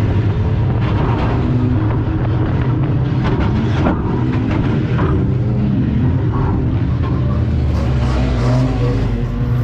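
Morris 1100's four-cylinder engine running under load, a steady low drone heard from inside the cabin as the banger drives, with clatters and knocks about a second in and again around four seconds in.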